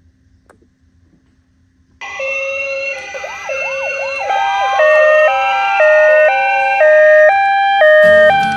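Several toy ambulance minicars' sirens sounding together, starting about two seconds in: a hi-lo two-tone siren switching notes about every half second, layered with slow rising-and-falling wails and a few quick yelps.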